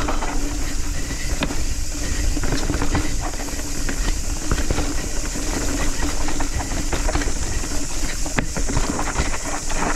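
Nukeproof Scout 275 hardtail mountain bike ridden fast downhill on a dirt trail: a steady rumble of wind and tyre noise, broken by frequent quick knocks and rattles from the bike over bumps.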